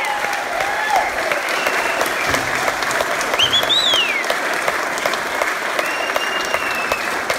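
Audience clapping and cheering at the end of a fiddle tune. There is dense applause throughout, with one high rising-and-falling cry from the crowd about halfway through.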